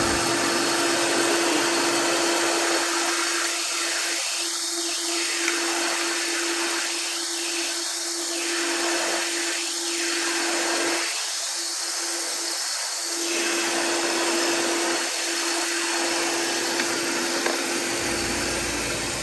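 Ford 3.0-litre Vulcan V6 idling, heard close up in the engine bay: a steady whir with one constant hum running through it. It is the test run after the thermostat replacement.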